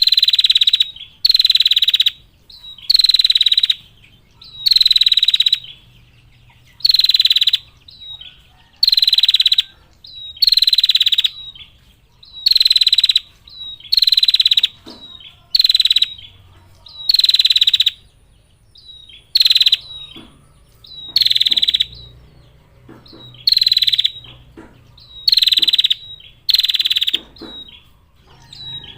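Female prenjak (prinia) giving its long 'ngetir' trill call over and over, each call under a second long, about one every two seconds, with faint short chirps between the calls in the second half.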